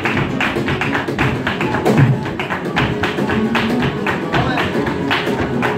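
Flamenco music in bulerías rhythm: a steady run of sharp percussive strikes from the dancing, over guitar and a singing voice.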